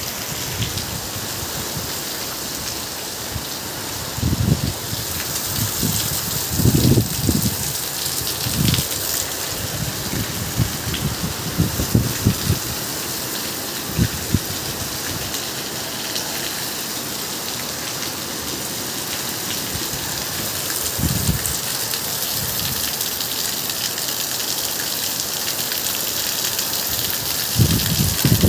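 Heavy rain pouring onto concrete rooftops, a dense, steady hiss. Short low rumbles break through every few seconds, loudest near the end.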